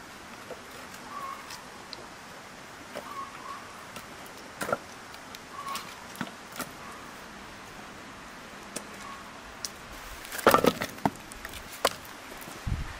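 Scattered light clicks and knocks of objects being handled, with a short burst of louder clattering about ten seconds in.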